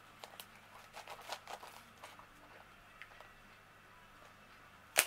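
Scissors working at a tough plastic elastic band around a rolled canvas tube: faint clicks and plastic rustling, then one sharp snap of the band being cut near the end.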